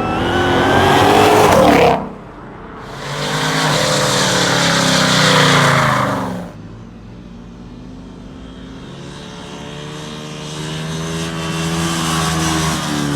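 Motor vehicle engine revving hard, rising in pitch and then dropping off abruptly about two seconds in, pulling up loud again until about six seconds in, then climbing again more slowly and quietly.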